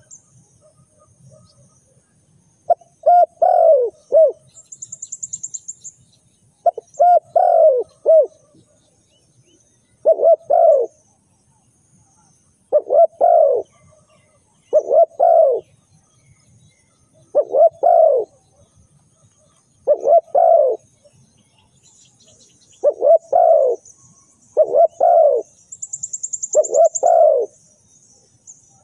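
Spotted dove cooing: short phrases of a few low coos, repeated every two to three seconds. A high-pitched fast trill cuts in twice.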